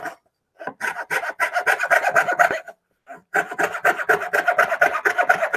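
Coping saw cutting through a 3/8-inch wooden blank in quick, steady strokes. It starts about half a second in, pauses briefly near three seconds, then carries on.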